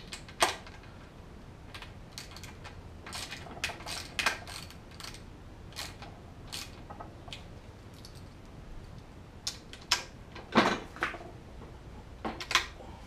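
Scattered short metallic clicks and clinks at irregular intervals from hand tools working the bolts of an outboard lower unit's water pump housing as they are tightened evenly onto the gasket.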